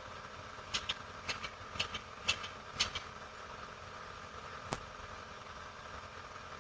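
Steady mechanical hum, like an idling engine. Over it come five quick pairs of short, sharp clicks about half a second apart, starting just under a second in, and a single click near the end.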